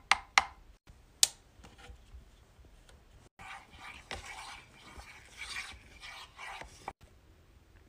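Three sharp knocks in the first second and a half, then a wooden spatula scraping and stirring melted hard wax around the metal pot of a wax warmer.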